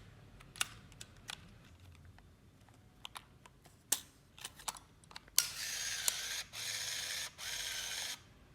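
Olympus mju-1 film camera being loaded: handling clicks and the back snapping shut, then its motor whirring for about three seconds, with two short breaks, as it auto-winds the freshly loaded 35mm film to the first frame.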